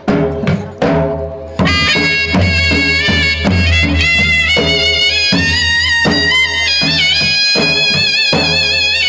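Charani raas folk dance music: steady drum beats, joined about one and a half seconds in by a reedy, wind-instrument-like melody holding high, wavering notes.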